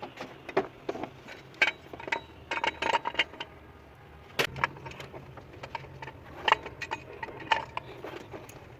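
Irregular metallic clinks and taps of hand tools on metal, some ringing briefly, a few dozen in quick clusters.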